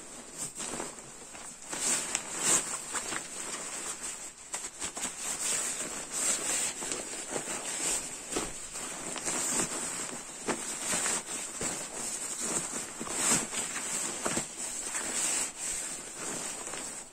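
Nylon fabric of a down sleeping bag and its compression sack rustling and swishing in irregular handfuls as the bag is stuffed into the sack.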